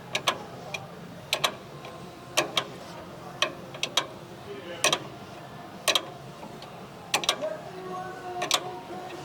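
Sharp clicks or taps, roughly one a second and sometimes in quick pairs, over a low steady hum.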